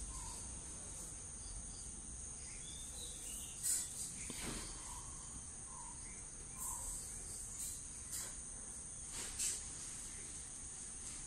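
Steady high-pitched chirring of an insect chorus, with a few short scuffs or knocks scattered through it.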